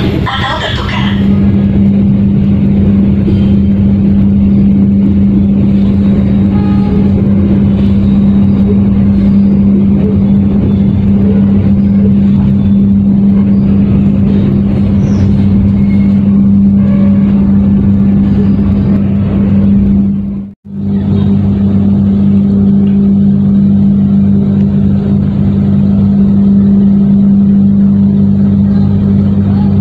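Steady low drone of a train's diesel engine, one even hum that does not change. It cuts out for a split second about twenty seconds in, then carries on with a deeper hum added.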